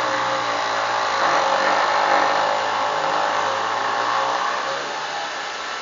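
Cordless power tool's electric motor running steadily under load as it spins a bolt off the battery ground cable.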